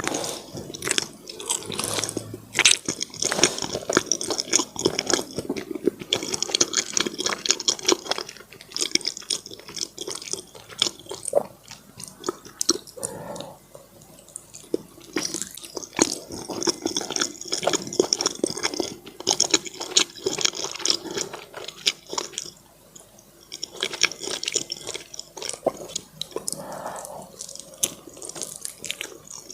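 Close-miked chewing and wet mouth sounds of a person eating soft, sticky food: rapid wet smacks and clicks in runs, with a couple of short quieter pauses.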